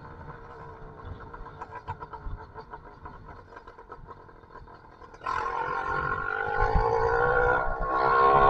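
Two-stroke YD85 engine with a Master Blaster exhaust pipe running at low throttle, then opened up about five seconds in: it jumps suddenly louder and the pitch climbs steadily as it revs up under acceleration.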